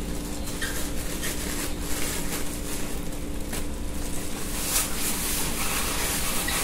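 Rustling and scraping as a package of polvilho (cassava starch) is handled over a wooden bowl, the rustle growing denser in the second half, over a steady low hum.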